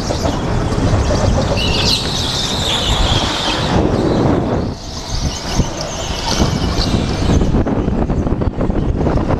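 Go-kart driving around an indoor track, heard from the driver's helmet: a steady rumble of motor and wind. The tyres squeal through the corners, about one and a half seconds in for two seconds and again from about five seconds in.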